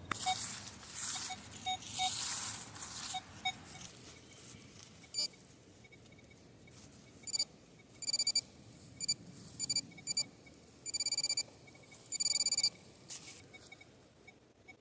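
Metal detector sounding repeated short electronic target beeps, several in quick pulsing runs, as it is swept over shallow buried metal. In the first few seconds a rustling, scraping noise with faint beeps under it.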